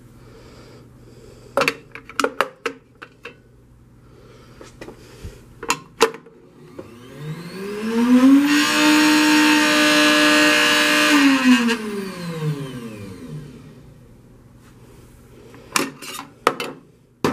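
Waring WDM120TX drink mixer with a stainless steel mixing cup. The cup clinks against the metal as it is fitted. Then the motor whirs up in pitch, runs steadily for about three seconds and winds down as it stops. More metal clinks come near the end as the cup is taken off.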